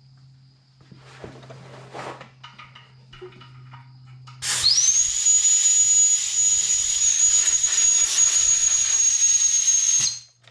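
Light clicks and handling noise, then about four and a half seconds in compressed air bursts out of the Mastercraft air hose reel's hose with a loud hiss and a steady high whistle. The air escapes through the hose's open end, which has no quick-connect fitting yet. It runs for about five and a half seconds and cuts off suddenly.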